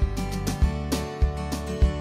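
Background music: a strummed acoustic guitar over a steady beat, with a low thump about every 0.6 seconds.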